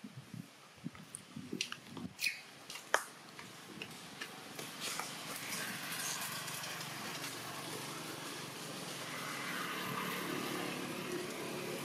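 A few scattered clicks and knocks, then a motor vehicle's engine rising in from about four seconds in and running steadily.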